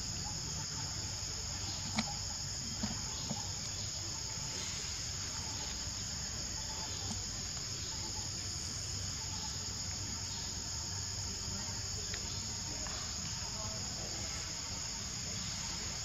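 A steady, high-pitched chorus of forest insects, crickets or cicadas, with a few soft clicks about two and three seconds in.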